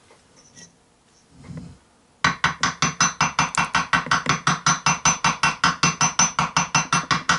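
Hammer tapping lightly and rapidly on a metal drift set on the hub of a Stihl 026 chainsaw's flywheel, about six taps a second with a bright metallic ring, starting about two seconds in. The taps drive the flywheel onto the crankshaft over its Woodruff key.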